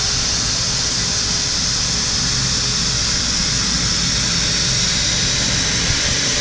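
Datron M8Cube CNC mill's high-speed spindle running steadily, a constant high-pitched hiss and whine with a low hum beneath.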